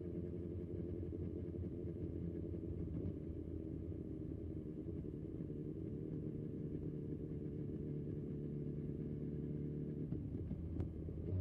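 BMW S1000XR's inline four-cylinder engine running steadily as the motorcycle cruises, a low, even engine note with little wind noise over it.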